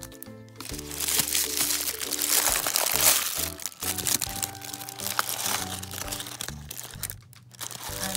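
Crinkly wrapping of an LOL Surprise ball being crumpled and pulled apart by hand: a crackling rustle, loudest in the first half. Background music plays under it.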